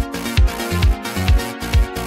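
Background electronic dance music with a steady kick drum, a little over two beats a second, under sustained synth chords.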